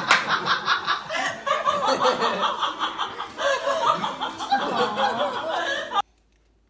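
Several people laughing and chuckling together in quick, pulsing bursts. The laughter stops suddenly near the end.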